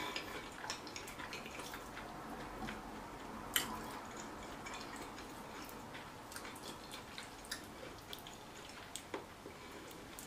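Quiet eating sounds: scattered faint small clicks and taps, with one sharper click about three and a half seconds in.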